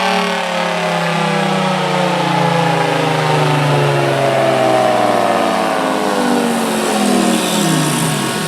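Federal Signal Thunderbolt outdoor warning siren winding down, its tone falling steadily in pitch as the rotor slows.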